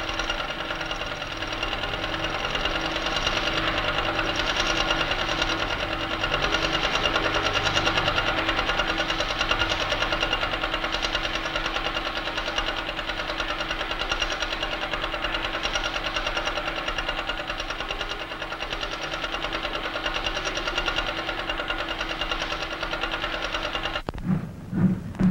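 Multi-pen chart recorder running with a fast, steady mechanical clatter and buzz. About a second before the end it changes abruptly to a steam locomotive's loud, rhythmic exhaust beats.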